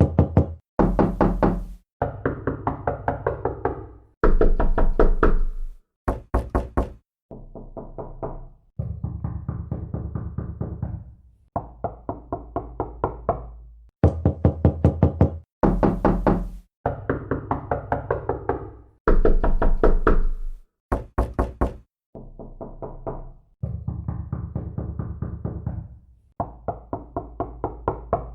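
Door-knocking sound effects played one after another: about sixteen short runs of quick knocks, roughly four to six knocks a second, each lasting a second or two with a brief pause between them. Some runs sound deeper and some sharper, and the run of clips seems to start over about halfway through.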